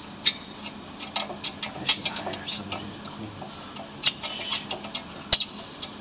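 Sharp, irregular metallic clicks and clinks, several a second, of hand tools and a socket wrench being handled, over a faint steady hum.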